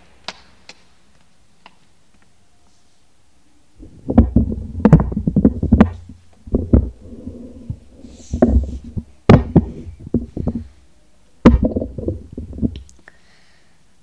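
Irregular clusters of knocks and dull thumps, starting about four seconds in and coming in bursts.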